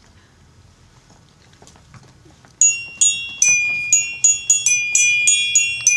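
Small toy glockenspiel struck with a mallet: after a quiet start, a quick run of bright ringing notes begins about two and a half seconds in, roughly three to four strikes a second.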